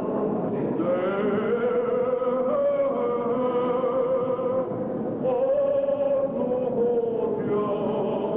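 Male voices singing an Armenian liturgical chant in long held notes that step slowly up and down, with a short break about five seconds in.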